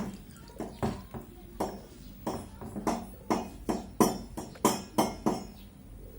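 A rapid, irregular series of sharp taps with a brief ring after each, about fifteen in six seconds, like metal being struck or clinked.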